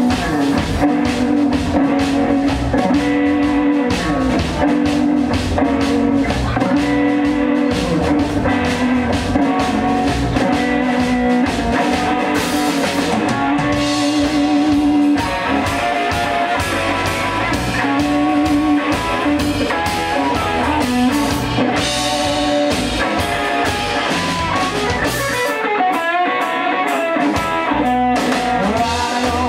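A live band plays an instrumental break in a rockabilly song: guitar lines over a drum kit, with the low end dropping out briefly near the end.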